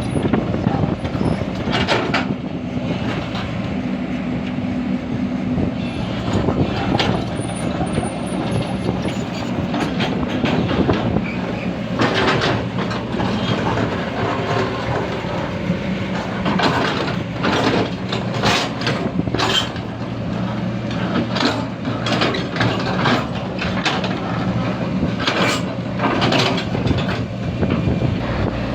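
Excavator's diesel engine running steadily under work, with repeated metallic clanks and rattles through it, thickening about halfway through.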